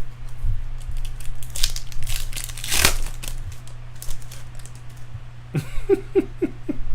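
Foil card-pack wrapper being torn open and crinkled, in a few crackling bursts about two to three seconds in, over a steady low electrical hum.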